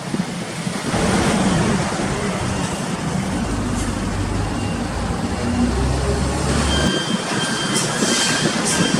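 A motor vehicle running and passing, with a low engine rumble that builds and then drops away about seven seconds in, over steady traffic noise.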